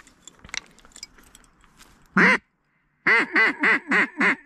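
Duck call blown to imitate a hen mallard. One loud quack comes about two seconds in, then after a short pause a quick, evenly spaced run of quacks, about four a second: a comeback call to turn a hen that is circling off back toward the decoys.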